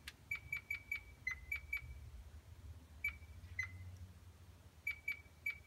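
Short high-pitched chirps, some in quick runs of three or four, at two slightly different pitches, over a faint low steady hum.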